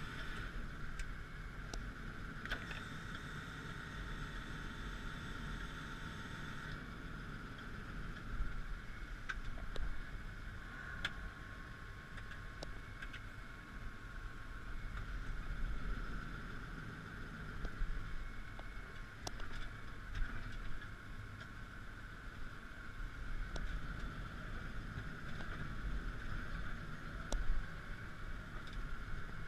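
Claas Axion 840 tractor's six-cylinder diesel engine running steadily under load while pulling a five-furrow plough, with a low rumble and a steady whine. A few sharp clicks and knocks come through now and then.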